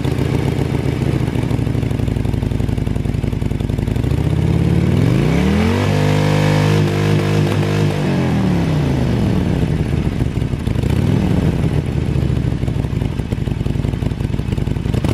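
2019 Harley-Davidson Sportster 48's air-cooled 1200 cc V-twin running through its stock exhaust. It idles, is revved up about four seconds in, held briefly and let fall back to idle, then given a smaller blip about eleven seconds in.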